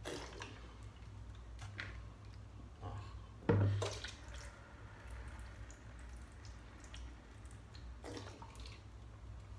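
Soy sauce pouring and dripping from upturned plastic bottles into a plastic basin of marinade, with a few sharp knocks as bottles and basin are handled, the loudest a little past three seconds in. A low steady hum runs underneath.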